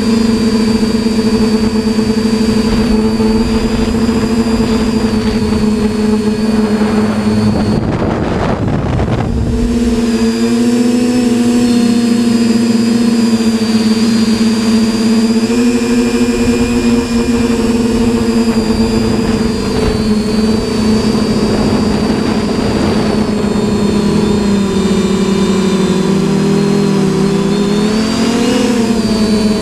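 TBS Discovery quadcopter's electric motors and propellers humming steadily in flight, the pitch dipping and rising a little as the throttle changes. A rush of wind noise comes through about eight seconds in.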